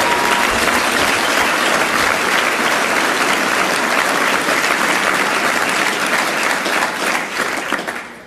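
Large audience applauding: dense, steady clapping that fades out near the end.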